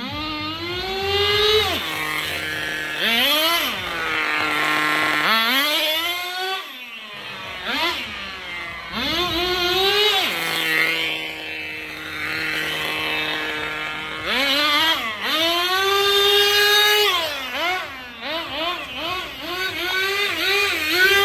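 Small nitro glow engine of a Tamiya TGS radio-controlled car revving up and down as the car is driven back and forth: the pitch climbs to a high, steady whine, holds, then falls back toward idle several times. Near the end come a run of quick throttle blips.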